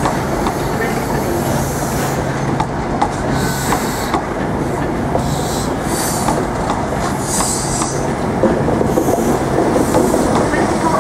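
InterCity 125 Mark 3 passenger coaches rolling slowly along a terminus platform: a steady wheel-and-track rumble with occasional clicks over rail joints. Short high-pitched wheel squeals come and go from about three seconds in.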